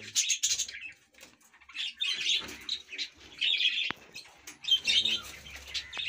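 Small caged parrots, budgerigars among them, chirping and chattering in repeated bursts of short high calls. A single sharp click about four seconds in.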